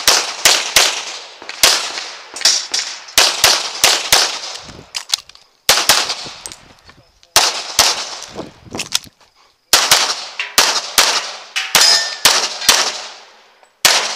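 Rapid pistol fire from a CZ Tactical Sport Orange, shots mostly in quick pairs, with brief pauses about five, seven and nine seconds in. Some shots are followed by the ring of steel targets being hit.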